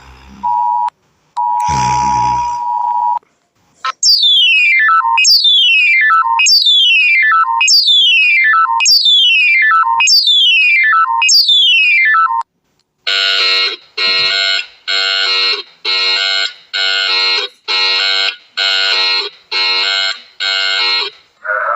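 Emergency alert–style electronic alarm tones: a steady two-note beep that breaks off a few times, then a high falling electronic sweep repeated about seven times, then about ten short buzzy pulses.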